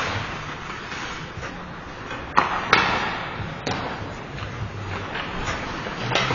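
Ice hockey play: sharp cracks of sticks and puck, the two loudest about two and a half seconds in, a third of a second apart, with a few weaker knocks later, over the rink's steady background noise.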